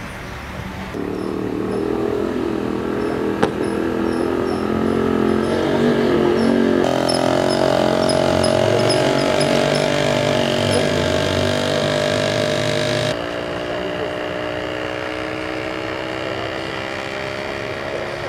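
Vehicle engines running at a roadside, the sound changing abruptly three times, with a slow downward drift in pitch over the last few seconds. A sharp click about three and a half seconds in, and short high chirps repeating through the first two thirds.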